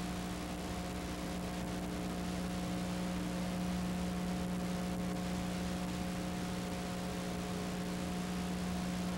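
Steady low hum with several fainter higher overtones over a constant hiss, unchanging throughout, with no other sound.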